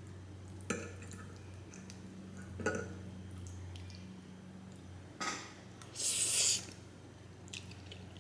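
Close-up eating sounds from a plate of spaghetti: a few sharp clicks of a fork against the plate and a short wet slurp about six seconds in, over a steady low hum.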